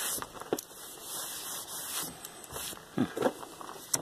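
Light rubbing with a few soft knocks from a gloved hand on a metal tabletop and a plywood board being handled.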